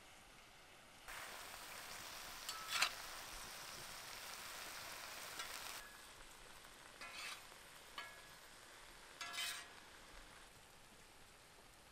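Porcini mushroom pieces sizzling in a flat pan over a wood fire, a steady hiss that starts suddenly about a second in, with a couple of sharp clicks. Near the end, a fork turns the mushrooms in a few short scraping strokes against the pan.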